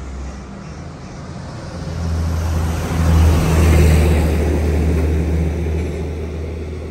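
A motor vehicle passing on the road: a low engine drone with road hiss that builds to its loudest about three to four seconds in, then slowly fades.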